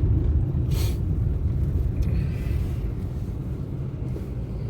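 A moving car heard from inside the cabin: a steady low rumble of engine and road, with one short sharp click about a second in.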